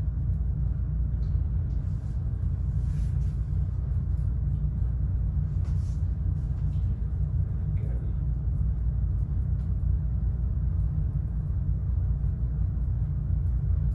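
A steady low rumble, with a few faint, brief soft noises on top.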